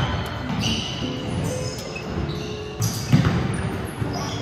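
A basketball bouncing on a hardwood gym floor during play, with sneakers squeaking. The louder bounces come about three seconds in.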